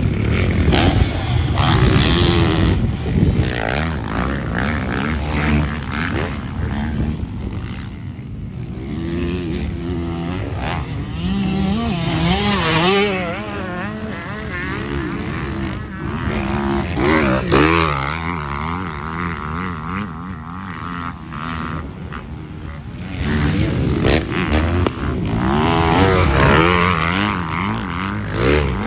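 Motocross dirt bike engines revving, their pitch rising and falling repeatedly with the throttle and growing louder several times as bikes pass close.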